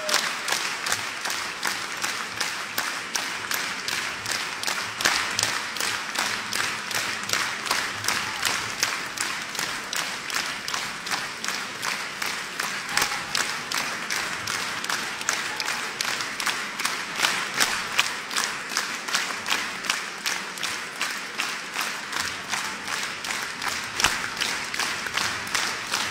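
Concert-hall audience applauding at a curtain call, dense and sustained, with sharp claps close by falling in a quick, steady beat.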